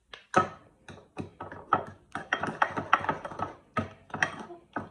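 A metal spoon stirring a thick paste in a bowl, tapping and scraping against the bowl in quick, irregular strokes.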